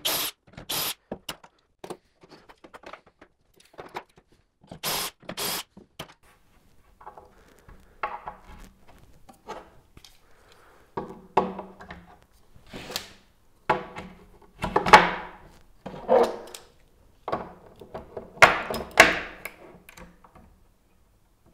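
Two pairs of short, sharp bursts of a cordless drill boring shelf-pin holes through a Kreg shelf pin jig into a cabinet side. After that come irregular thunks, knocks and rubbing as the metal indexing pin goes into a hole and the jig is shifted and re-clamped with a locking clamp.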